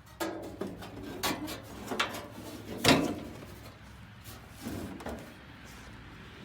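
A series of separate knocks and clunks, about one a second, the loudest about three seconds in, with a weaker pair near the five-second mark.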